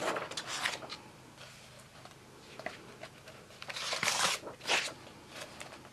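Thick colouring-book pages being turned by hand, the paper rustling in two bursts: one at the start and a louder one about four seconds in, with light paper ticks between.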